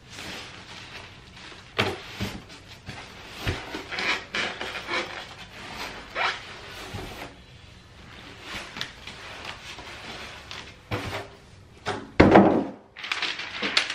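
Styrofoam packing and plastic wrap being pulled off a computer monitor: foam rubbing and creaking, plastic rustling and irregular knocks of handling. There is a louder thump about twelve seconds in, followed by a burst of crinkly plastic rustling.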